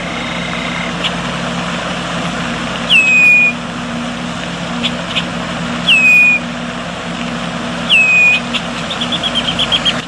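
Red-winged blackbird calling: three loud whistled notes, each sliding down and then holding briefly, about two to three seconds apart, then a quick run of about eight short chips near the end. A steady low hum runs underneath.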